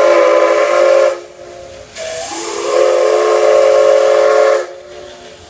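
Steam whistle of the C11 207 steam locomotive: a blast that ends about a second in, then after a short gap a longer blast of about two and a half seconds that slides up in pitch as it opens.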